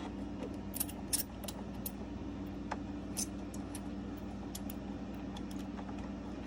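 Small metal screws and a screwdriver clicking and ticking irregularly as face-plate screws are driven in, over a steady low hum.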